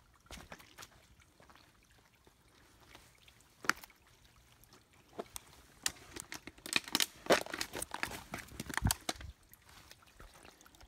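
Thin trickle of water splashing over creek-bed rocks, with irregular sharp splashes and knocks that come thickest between about six and nine seconds in.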